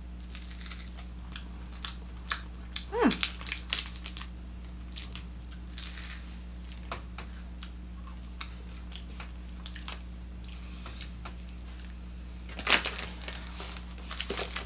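Snack wrapper crinkling and a chocolate bar being chewed, with scattered small crackles over a steady low room hum. A short falling tone comes about three seconds in, and a sharper crackle of wrapper near the end.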